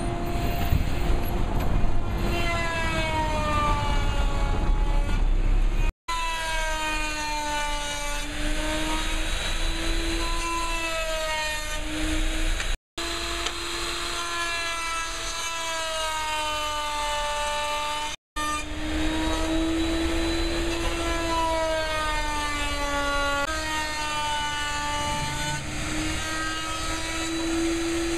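Small homemade table saw, its circular blade set through a board, running with a steady electric-motor whine whose pitch sags and recovers over a few seconds at a time as wooden strips are pushed through the blade. The sound drops out for an instant three times.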